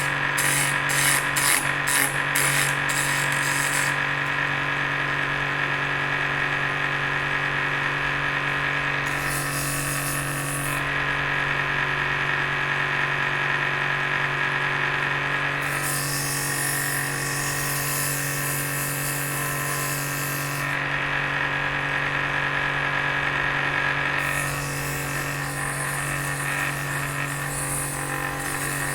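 Benchtop drill press motor running steadily, spinning a chisel-handle blank used as a makeshift lathe. Four stretches of higher-pitched cutting noise come and go as a tool is held against the turning piece, the first with a fast chatter.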